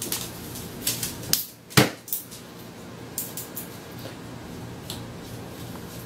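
Plastic lid of a pet food storage bin being shut: a few light clicks and taps, then one sharper knock just before two seconds in. A few fainter clicks follow.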